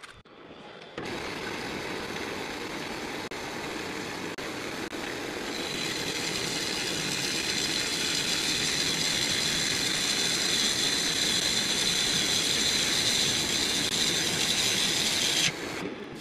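Wood lathe spinning a large ash bowl blank while a hand-held turning tool cuts it: a steady rush of cutting noise that starts about a second in. A high scraping whine joins about halfway and the whole grows louder. The cutting stops abruptly near the end.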